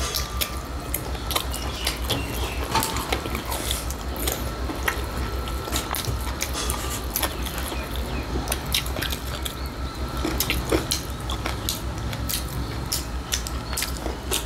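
Two people eating with their hands at close range: chewing and mouth sounds, with many small scattered clicks and taps of fingers and food on metal plates, over a steady low hum.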